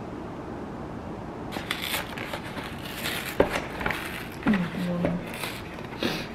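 Plastic food packaging crinkling and rustling in a run of short, crisp bursts, starting about a second and a half in.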